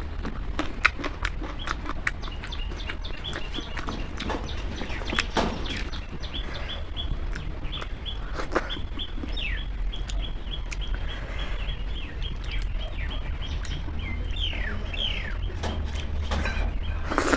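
Close-miked chewing and wet lip smacks from someone eating rice with fried eggplant, as sharp repeated clicks. Behind them a bird chirps over and over in short high notes, with a few falling calls near the end, over a steady low hum.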